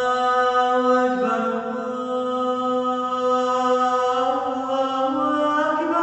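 A single voice chanting long held notes in an Islamic vocal recitation, moving slowly between pitches and climbing higher in the second half.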